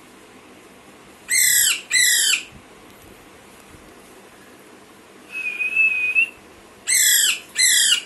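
Young Alexandrine parakeet giving loud, harsh squawks in two pairs, the first about a second in and the second near the end, each pair two short calls in quick succession. Between the pairs comes a short, steady high whistle lasting about a second.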